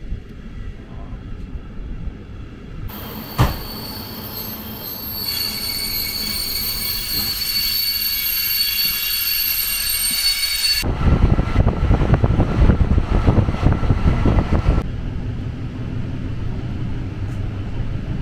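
A regional train running on the line, heard in short cut-together takes. From about three seconds in, a high metallic squeal of wheels or brakes holds for several seconds. It gives way to a louder rumble of the train running, which settles to a steadier, quieter running noise near the end.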